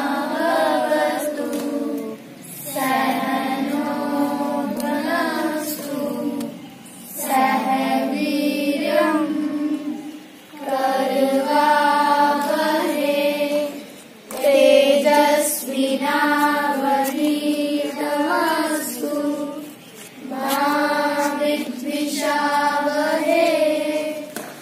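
A group of children chanting a mantra together in unison. The chant comes in phrases broken by short pauses every four to six seconds.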